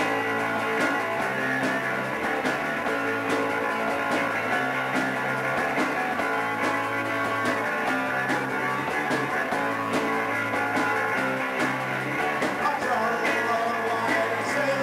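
A live rock band playing with two electric guitars, an electric bass and a drum kit at a steady beat, with no lead vocal in this passage.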